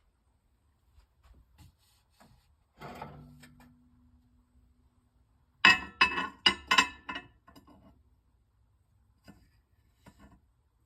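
Seasoning being put on a turkey roast and potatoes in a pan: a dull knock with a short hum about three seconds in, then four sharp clacks in quick succession a little past the middle, and a few light taps.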